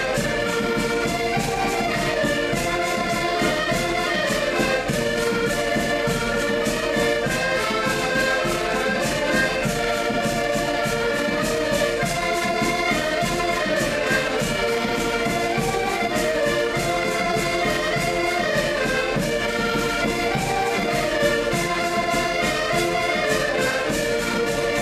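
Live folk music played on accordions over a steady beat from a rope-tensioned bass drum.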